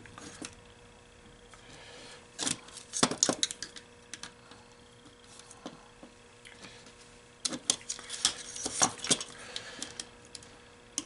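Plastic and metal parts of an MEI bill validator being handled and taken apart at the stacker plate: two flurries of sharp clicks and knocks, about two and a half seconds in and again from about seven and a half to nine seconds, over a faint steady hum.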